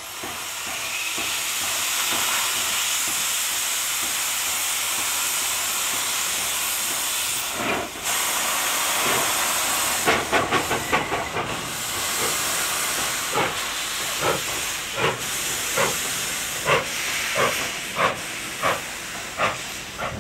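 Steam tank locomotive starting a train: a steady loud hiss of steam, then exhaust chuffs from the chimney. About ten seconds in comes a quick flurry of beats as the driving wheels slip, followed by regular chuffs that quicken slightly as the engine gets the train moving.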